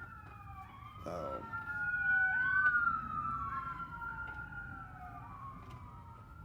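Several emergency vehicle sirens wailing at once, their tones slowly rising and falling and crossing over each other, loudest a couple of seconds in.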